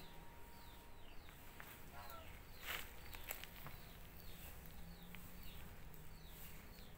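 Garden ambience: a small bird repeats short falling whistled notes, in pairs about once a second, over a steady low hum. There is a brief rustle a little under three seconds in.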